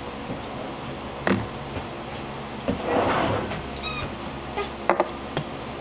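Handling noises close to the microphone: a sharp click, a short rustle, a brief high squeak about four seconds in, and a couple more clicks, over a steady low hum.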